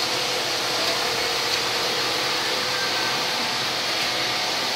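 Steady mechanical hiss and hum of flat knitting machines running on a knitting floor, with a few faint steady tones under it.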